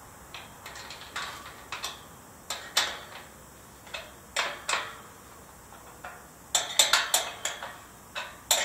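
Hammer striking metal: a series of irregular sharp, ringing taps, spaced out at first and coming in a quick cluster about two thirds of the way through.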